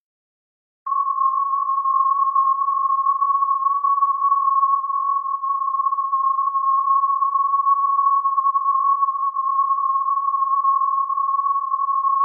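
A single steady electronic beep, one pure unchanging tone, starting about a second in and held without a break for over ten seconds: a long sustained beep used as a fail sound effect.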